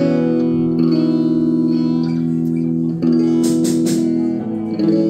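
Live rock band playing electric guitars over a bass guitar, chords and notes held and ringing, with no singing. A few sharp hits cut through a little past the middle.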